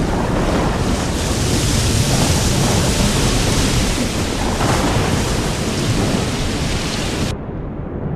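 Heavy rainstorm: a dense, loud hiss of pouring rain over a low, continuous thunder-like rumble. About seven seconds in, the hiss cuts off abruptly, leaving only the low rumble.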